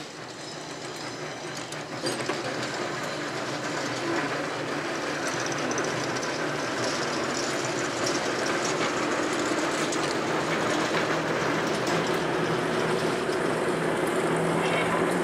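Class 09 diesel-electric shunter 09017 running along the yard track, its diesel engine humming steadily and growing louder as it comes past close by, with the wheels clicking on the rails.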